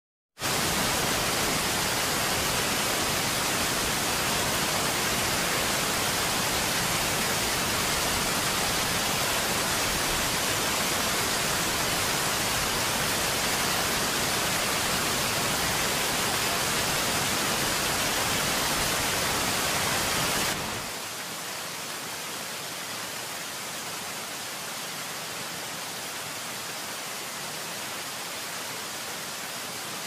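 Steady, even rush of running water that starts abruptly. About twenty seconds in it cuts to a quieter, thinner rush with less low rumble.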